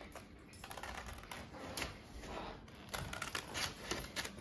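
Scissors snipping through a paper template: a run of repeated, irregular snips with the paper rustling.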